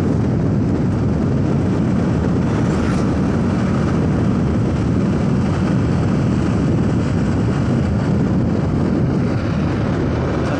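Steady rush of wind buffeting the microphone, mixed with the engine and tyre noise of a motorcycle riding along at an even speed.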